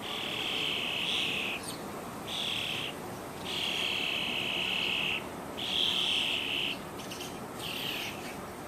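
A bird calling loudly and repeatedly: a run of about five long, high trills, each lasting around a second, with short pauses between them.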